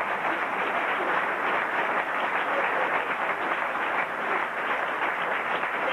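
Theatre audience applauding and laughing, a steady dense clatter of many hands.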